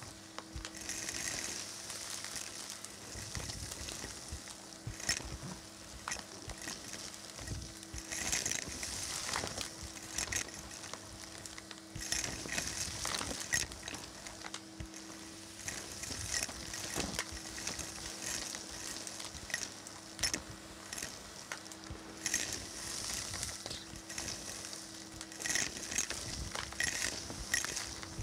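Vacuum cleaner hose sucking up a pile of carpet fluff mixed with coins, confetti and small debris: a steady motor hum with a rushing hiss, broken by many small clicks and rattles as bits are drawn up the hose.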